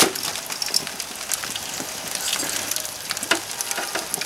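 Squash halves sizzling in aluminium foil pans on a hot grill, with a few light clicks of metal tongs against the pan, the loudest right at the start.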